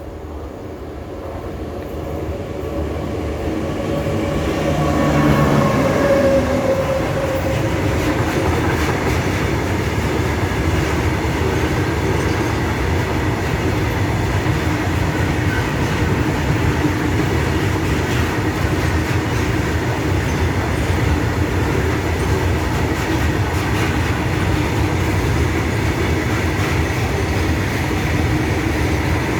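An Indian Railways train approaching and passing: it grows louder over the first few seconds, the locomotive's tones drop in pitch as it goes by about five to six seconds in, and the train then keeps running past steadily.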